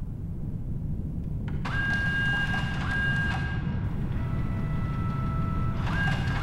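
Film-score sound design: a low rumbling drone, joined about one and a half seconds in by steady, high electronic tones at several pitches that fade in and out.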